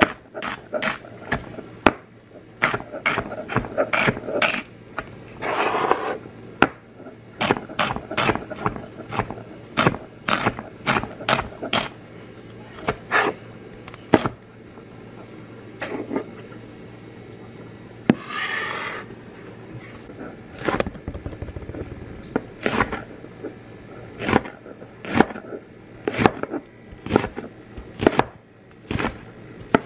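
Chef's knife chopping celery and then onion on a stone surface: sharp knocks of the blade striking the stone, about three a second in uneven runs. Two longer scrapes come about six seconds in and again near nineteen seconds.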